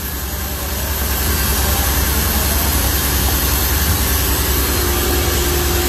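Steady, loud drone of a running factory machine motor, with a steady hum joining about three and a half seconds in.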